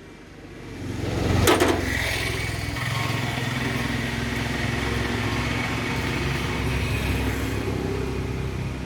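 An engine comes up about a second and a half in and then runs steadily.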